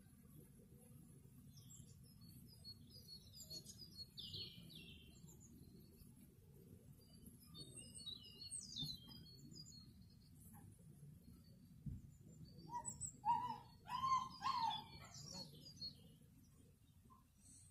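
Songbirds chirping in short bursts, with a louder song about 13 to 15 seconds in, over a low steady hum of honeybees flying at the hive entrance.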